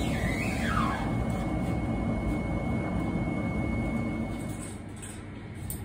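Steady low mechanical rumble with a faint, thin, high steady whine over it; the rumble eases off about four and a half seconds in.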